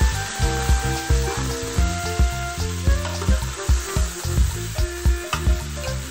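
Chicken pieces sizzling as they fry in oil in a metal pot while a spatula stirs them. Background music with a steady bass beat and held notes plays over the frying and is the loudest sound.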